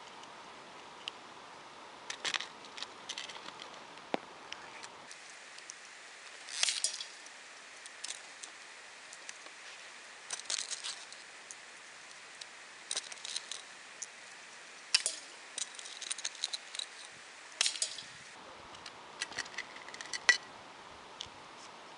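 Air-rifle pellets being taken from a metal tin and pushed into a small plastic rotary magazine: scattered small clicks and metallic clinks, some in quick clusters.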